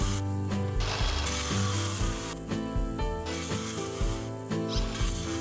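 Background instrumental music with a stepping bass line and a steady beat.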